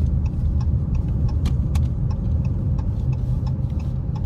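Car cabin noise on the move: a steady low road-and-engine rumble, with scattered light clicks.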